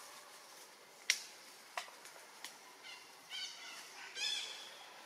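A sharp click about a second in, then two short, high-pitched squeals from a baby long-tailed macaque about three and four seconds in.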